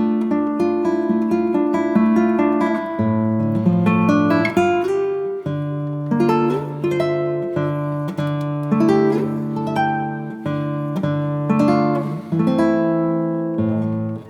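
Background music: acoustic guitar picking a gentle melody over a bass line, the notes plucked and left to ring.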